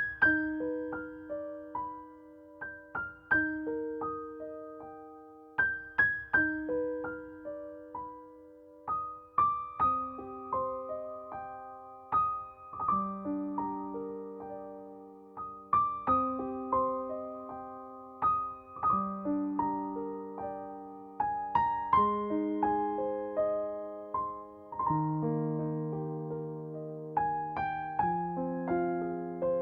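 Background music: slow solo piano melody with sustained bass notes.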